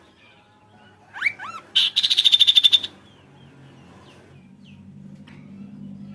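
Kaso-kaso bird calling: three quick upswept whistled notes, then a loud fast rattling trill of about a dozen strokes lasting under a second.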